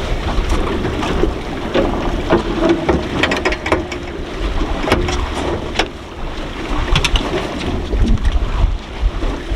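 Boat at sea: wind buffeting the microphone over a low rumble of boat and water noise, with scattered sharp knocks and clicks, several in quick succession around the middle.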